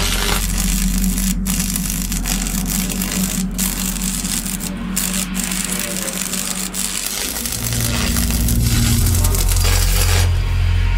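Stick (manual metal arc) welding: the arc crackling steadily, cutting out for a moment a few times, over low steady tones that change pitch about seven and a half seconds in.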